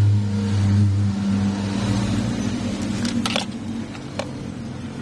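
A motor vehicle engine running at a steady idle, its low hum fading somewhat after about three seconds, with a few sharp clicks near the end.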